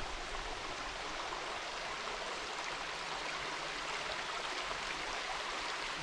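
Steady rush of falling water, an even hiss with no breaks.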